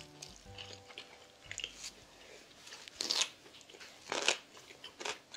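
Close-up crunchy chewing and biting of food, a few crisp crunches standing out about three and four seconds in, with smaller ones near the end.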